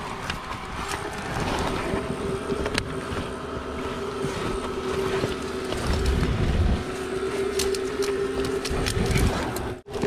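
Leafy branches and vines rustling and scraping against a body-worn camera as a climber pulls up through the vegetation on a rock face, with scattered handling clicks and a few heavier bumps. A steady hum runs underneath.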